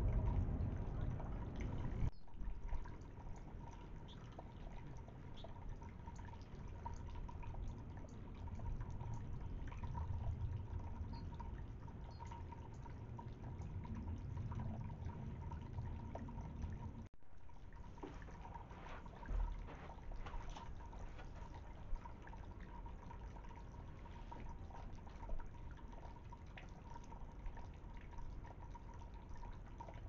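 Water trickling and dripping from bowl to bowl down a small tiered cascade garden fountain, steady throughout, with a faint steady high tone and a few small clicks.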